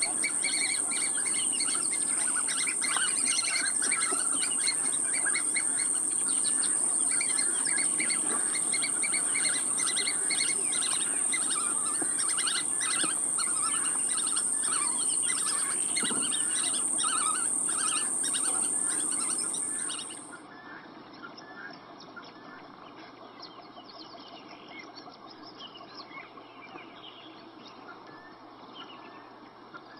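Birds chirping over a steady high-pitched whine. About two-thirds of the way through, the whine cuts off suddenly and the sound drops to fainter chirping.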